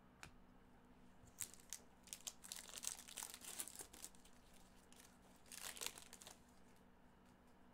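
Faint crinkling and tearing of a Panini Prizm foil card-pack wrapper as gloved hands rip it open, in a spell of about three seconds, then a shorter burst about a second and a half later.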